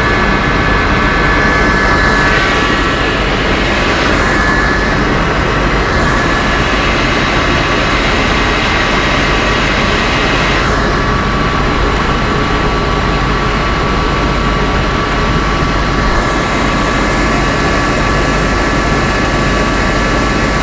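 An engine running steadily and loudly, with a steady high whine over it.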